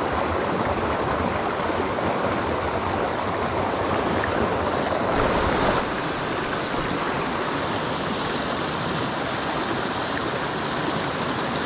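Small mountain creek rushing steadily over rocks, a constant running-water noise that grows a little louder for a moment about halfway through.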